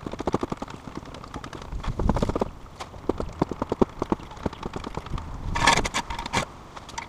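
Quick metallic clicks and knocks in uneven clusters from working a floor jack and jack stands on a concrete floor under a car, with a few low thuds. About five and a half seconds in comes a short, harsh scrape.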